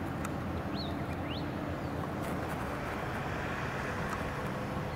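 Steady hum of road traffic, with a vehicle passing more loudly about three to four seconds in. Two short rising chirps are heard about a second in.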